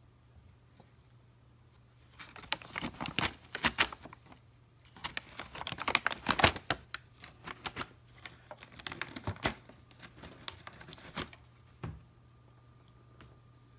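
Paper bag rustling and crinkling in irregular bursts as a cat moves about in it, followed by a single soft knock.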